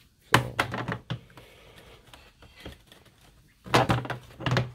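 GearWrench long ratcheting combination wrenches clicking and clattering against each other and their plastic storage tray as they are set into the slots, in two quick bursts of sharp knocks, one near the start and one near the end.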